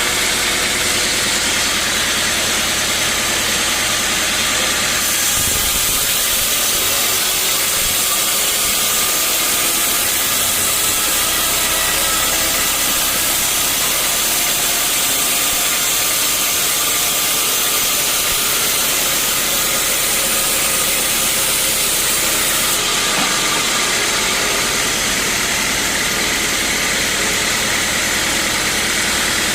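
Sawmill running steadily with its engine humming. From about five seconds in until about twenty-three seconds, the blade cuts through a teak log, adding a loud high hiss over the engine.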